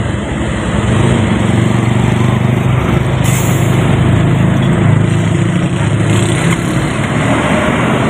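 Heavy diesel trucks passing close by, engines running with a steady low drone over tyre and road noise.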